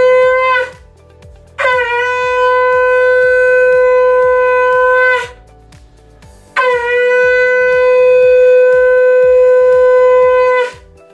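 Conch shell (shankh) blown in long, loud, steady notes, sounded to begin the puja: the tail of one blast, then two full blasts of about four seconds each, each opening with a short upward slide in pitch.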